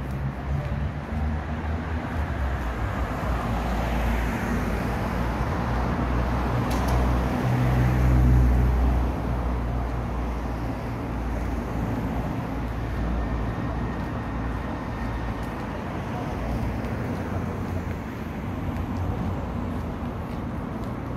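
City street traffic: a steady hum of car engines and tyres, with one vehicle passing close and loudest about eight seconds in.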